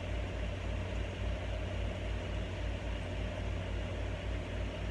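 A steady low mechanical hum with a faint hiss over it, unchanging and without distinct events.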